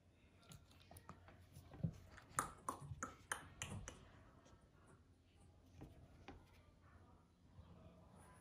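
Shih Tzu puppy's claws clicking and tapping on a wooden tabletop as she steps and turns. The sharp taps bunch together about two to four seconds in, with only a few faint ticks after.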